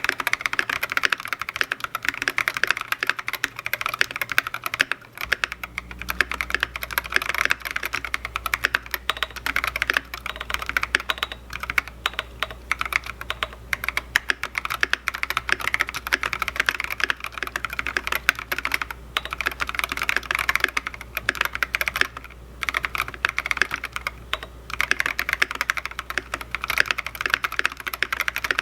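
Fast continuous typing on a KBD8X MKII custom mechanical keyboard with a polycarbonate case, brass plate and lubed 68 g Holy Boba tactile switches: a dense run of keystrokes with a few brief pauses.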